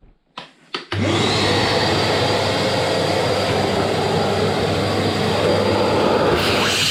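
Vacuum cleaner switched on about a second in, running steadily with a high whine over a low hum; its sound turns brighter and hissier near the end.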